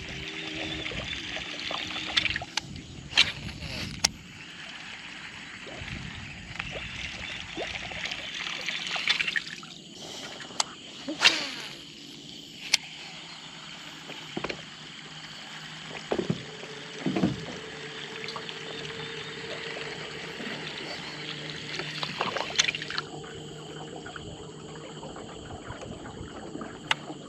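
Water sloshing and trickling around a small fishing boat, with scattered sharp knocks and clicks. A faint steady hum comes in past the middle.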